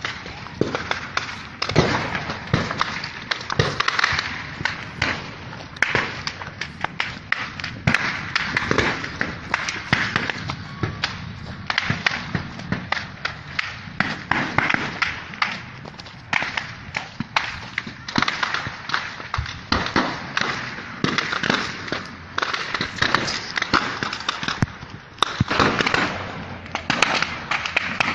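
Dense, irregular sharp cracks and pops of gunfire, several a second, coming and going in clusters.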